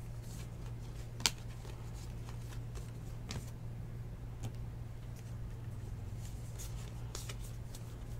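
Baseball trading cards being flipped through and handled by hand: scattered light clicks and snaps of card stock, the sharpest about a second in, over a steady low hum.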